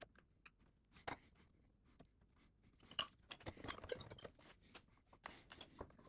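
Faint taps, clicks and scraping of wooden workpieces and hand tools being handled at a workbench, with a denser flurry of small ticks a little past the middle and a short scratchy scrape near the end.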